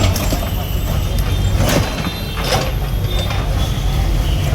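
Heavy diesel machinery running with a steady low rumble, with a couple of sharp knocks a little under two seconds in and again about a second later.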